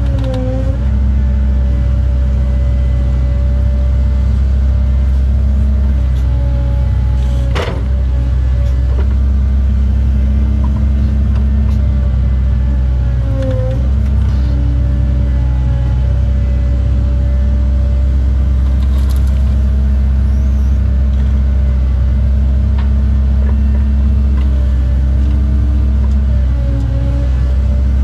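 Cat 309 mini excavator's diesel engine running steadily, heard from inside the cab, with a hydraulic whine that dips briefly in pitch a few times as the boom and bucket work under load. One sharp clank about seven and a half seconds in.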